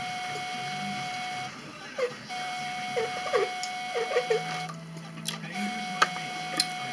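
A steady, high electronic whine switches on and off in blocks of a second or two. Between the blocks come a few gulps as a drink is swallowed, and sharp clicks near the end.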